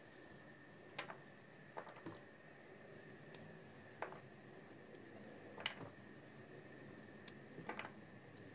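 Water-soaked raw almonds being squeezed out of their skins by hand, with faint wet squishes and a small click as each peeled almond is set down on a dish, about every second or two.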